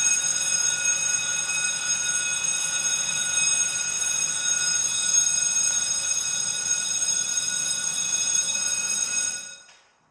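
Fire alarm sounding continuously: one loud, steady, shrill tone that starts abruptly. It is set off as an evacuate test from the fire alarm panel, then dies away about nine and a half seconds in as the alarm is silenced.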